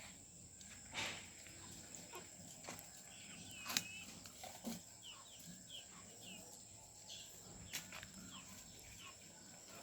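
Faint birdsong-like chirping, a run of short falling chirps about two a second through the middle and latter part, with scattered light clicks and knocks and a steady high-pitched whine.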